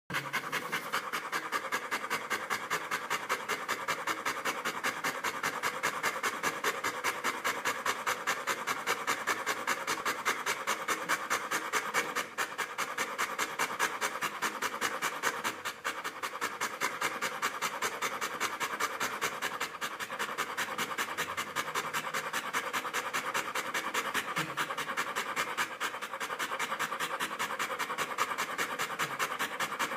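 Boxer dog panting hard, fast and even, worn out after a walk.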